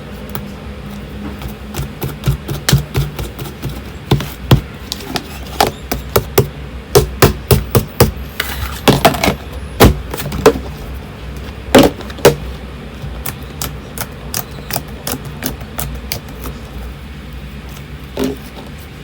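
Fluffy slime being squeezed and poked by hand, its trapped air popping and crackling in quick, irregular sharp clicks, thickest and loudest in the middle of the stretch and thinning out towards the end. A low steady hum runs underneath.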